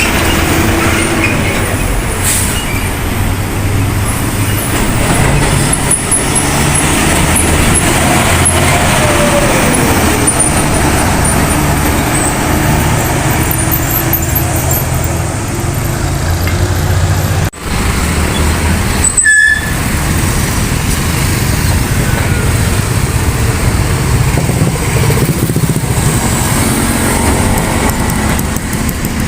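Container truck's diesel engine running as it moves through road traffic, a steady low rumble with other vehicles around it, broken by a brief dropout about two-thirds of the way through.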